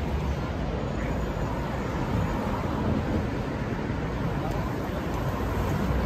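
Steady city street traffic noise: cars driving past with a low engine rumble.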